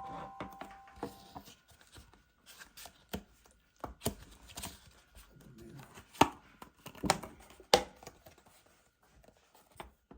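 Irregular sharp knocks and clicks of hard objects being handled or tapped, the loudest a few just after the middle, over a faint steady high whine.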